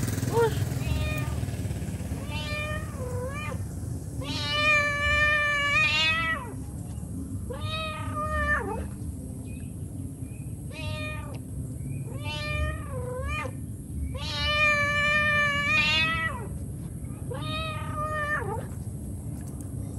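Adult cat meowing over and over, a mother cat's calling meows to her kittens: about nine meows, some short and some drawn out, with the two longest wavering in pitch about five and fifteen seconds in.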